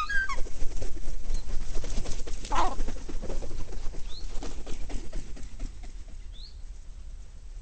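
Gulls at close range over food scraps: a short gull call at the start, then a few seconds of dense flapping and scuffling right by the microphone, with a few faint high rising chirps later on.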